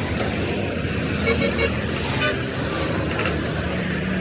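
Steady road traffic noise with a few short horn toots.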